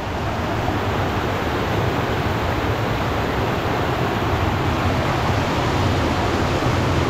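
A torrent of muddy floodwater rushing over and undercutting a washed-out dirt road in heavy rain, a loud, steady rushing noise.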